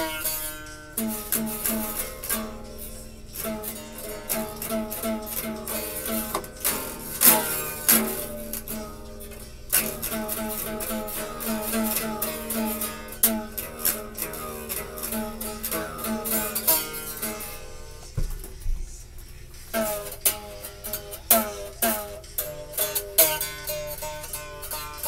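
Acoustic guitar being plucked, single picked notes and chords ringing. There is a short break with a low thump about three-quarters of the way through before the playing resumes.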